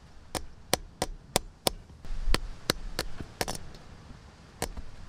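A mallet striking a hammer-type lug crimper, crimping a lug onto a heavy battery cable: about ten sharp taps at an uneven pace, with a duller thump about two seconds in and a gap of a second or so near the end.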